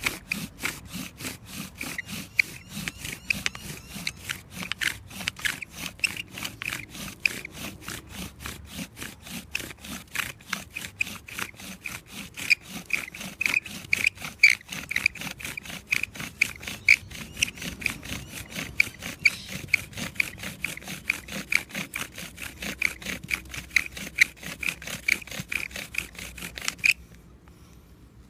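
Bow drill with a ceramic spindle spinning in a softwood fireboard for friction fire-making: fast, even back-and-forth strokes, each with a high squeak and rasp. It stops suddenly near the end.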